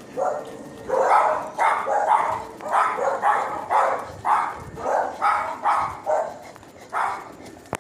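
A dog barking repeatedly: about a dozen short barks at roughly two a second.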